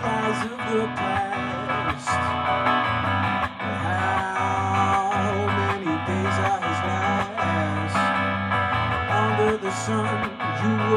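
Live song on a hollow-body electric guitar strummed through an amplifier, with steady strokes and a wavering melody line over the chords.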